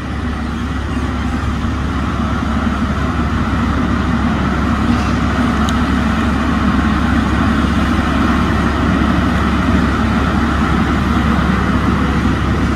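John Deere 848L-II skidder's diesel engine running steadily under load as the machine climbs a skid trail dragging a turn of about four logs, growing a little louder as it comes closer.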